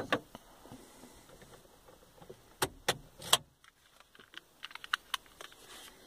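Clicks of buttons and the ignition key in a car's dashboard and steering column, ending with keys jangling. A click comes first, then three louder clicks about halfway in, after which the steady background hum stops as the ignition is switched off. A quick run of small metallic clicks and jingles follows as the key is pulled out.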